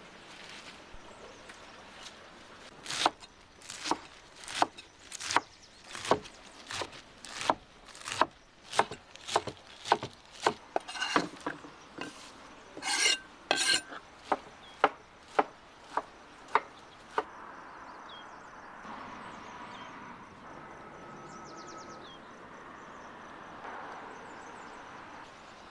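Knife chopping fresh leafy herbs on a wooden cutting board, steady sharp knocks about one and a half a second. The chopping stops about seventeen seconds in, leaving a soft outdoor background with a few faint chirps.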